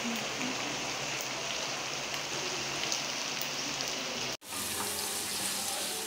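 Pork pieces sizzling steadily in a frying pan as the last of the cooking water boils off and the pork begins to fry in its own rendered fat. The sound cuts out for an instant a little over four seconds in, then carries on.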